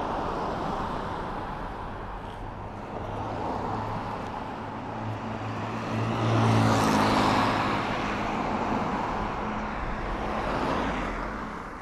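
Cars driving past on an asphalt street, a steady mix of tyre noise and engine hum that swells as each one goes by. The loudest pass is about six to eight seconds in, with another swell near the end.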